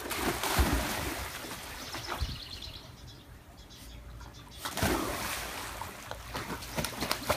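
Pool water splashing and sloshing as a dog swims, with a sudden louder burst of splashing about two-thirds of the way through.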